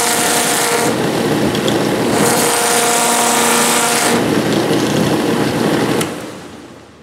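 Small 320-grit sanding wheel on an electric motor shaft running, with a steady hum and hiss, as a carved wooden bust's nose is pressed against it. The grinding hiss grows louder twice, in about the first second and again from about two to four seconds in, then the sound fades away over the last second.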